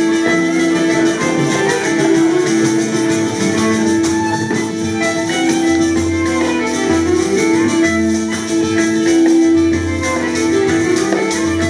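Live Irish traditional tune on fiddle and acoustic guitar, with a steady beat of frame drums: bodhrán and tamburello. A long held note runs under the melody.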